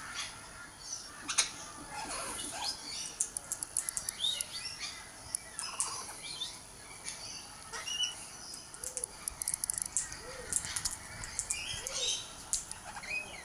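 Australian king parrots calling with short chirps and whistles, among many sharp clicks. In the second half, a lower arching call repeats about every second and a half.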